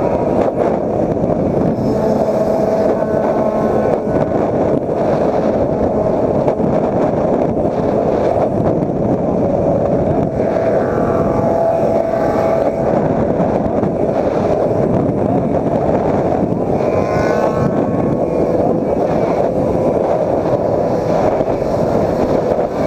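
Motorcycles running at highway speed, heard through heavy wind buffeting on a bike-mounted camera's microphone. Engine notes rise briefly twice, about halfway through and again a few seconds later.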